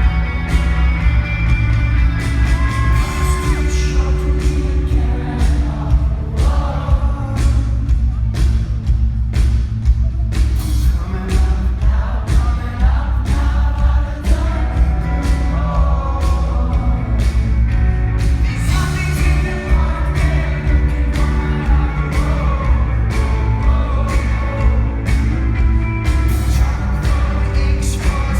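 Indie rock song with a singing voice over a steady drum beat, bass and guitar.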